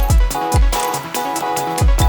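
Electronic background music with a steady beat of deep kick drums, cymbal ticks and a repeating synth melody.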